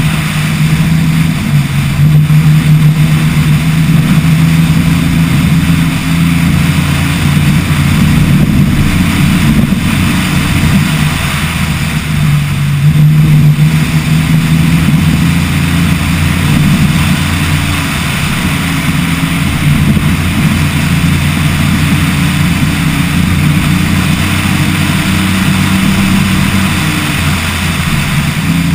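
Off-road Tacoma's engine running hard at speed on a dirt trail, its note rising and falling in steps as the throttle and gears change, over a constant rush of wind and road noise.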